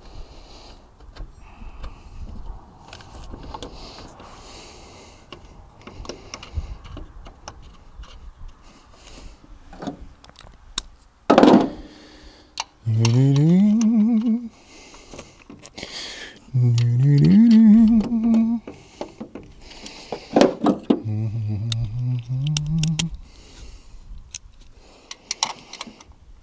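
A man hums three short tuneless phrases close to the microphone, each rising to a held note, over light clinks and scrapes of metal as a car alternator and its belt are handled. There is one sudden loud thump near the middle.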